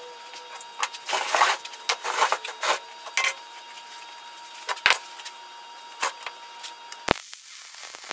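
Scattered clicks and knocks, then about seven seconds in the MIG welder's arc strikes with a sharp crack on 10-gauge steel sheet and settles into a steady hiss.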